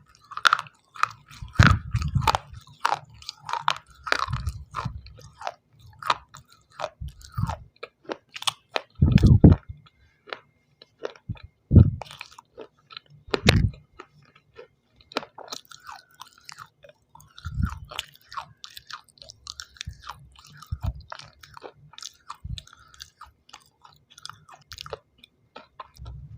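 A person biting and chewing hard pieces of white shell stone close to the microphone: many sharp, dry crunches, with a few heavier bites now and then that carry a deeper thud.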